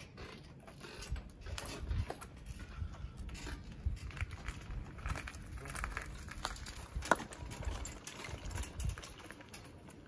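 Power wheelchair rolling down a wooden plank ramp and across a yard: irregular knocks and scuffs from its wheels over a low rumble, with one sharper knock about seven seconds in.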